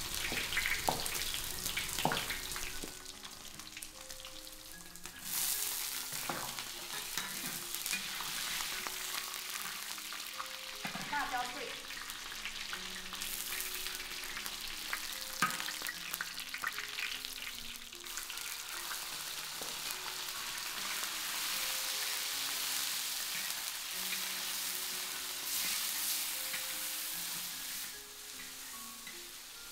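Pork stir-frying in a wok: a steady sizzle, with the metal spatula scraping and knocking against the pan now and then. Soft background music with held notes plays underneath.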